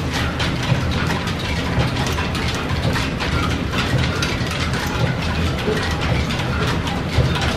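Steam-driven line shafting, belts and pulleys running steadily: a constant low rumble with a continual patter of small clicks and knocks.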